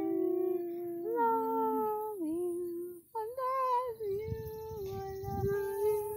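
A girl singing a slow tune in long held notes, with no clear words, almost like humming. A low rumble of the phone being handled joins in over the second half.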